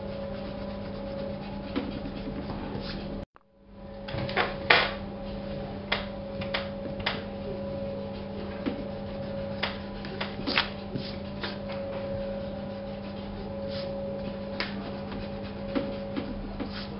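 Scattered light taps and short scratchy strokes of drawing over a steady electrical hum; the sound cuts out briefly about three seconds in, then fades back.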